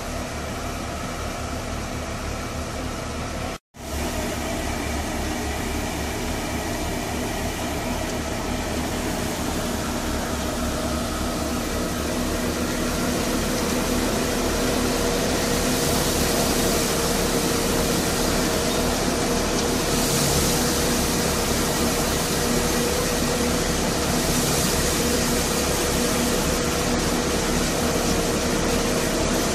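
Tractor-driven threshing machine running steadily: the Fiat 480 tractor's diesel engine drives the thresher drum while mustard stalks are fed in, a steady hum under a broad hiss. The sound cuts out for an instant a few seconds in and grows louder and hissier about halfway through, as the feeding mouth comes close.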